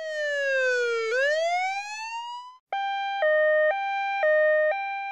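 Emergency-vehicle siren: a wail that slides down in pitch and back up, then, after a brief break, a two-tone hi-lo siren switching between its two pitches about every half second.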